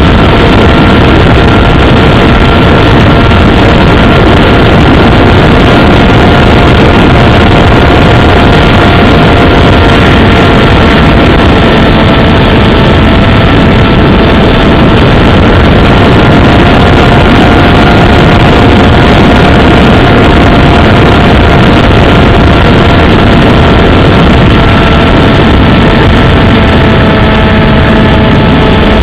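RC airplane's motor and propeller heard from an onboard camera: a loud, steady whine at an almost constant pitch over heavy rushing wind noise.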